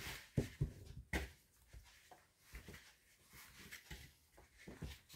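A few faint knocks and clatters of objects being handled and set down, the loudest about a second in.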